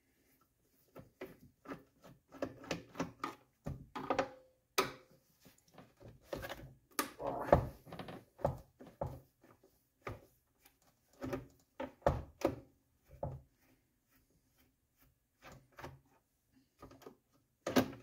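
Irregular knocks, taps and thunks of the plastic housing of a small air compressor being handled, turned and shifted on a wooden workbench, with the loudest thumps about seven and a half and twelve seconds in.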